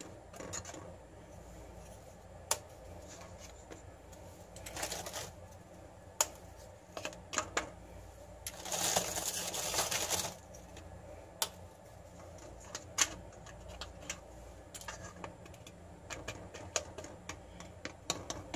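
Scattered light clicks and taps of hands setting María biscuits into a metal cake mould of creamy mixture, with a brief rustle about five seconds in and a longer rustle around nine seconds in.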